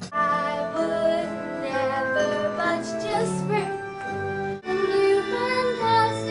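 Music with a young singer's voice holding and bending sung notes. The song breaks off abruptly about four and a half seconds in, and another sung excerpt starts.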